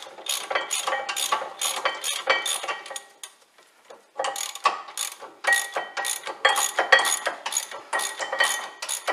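Hand ratchet clicking in repeated strokes as a 12-point socket winds in the front brake caliper slider bolts. The clicking stops for about a second roughly three seconds in, then carries on.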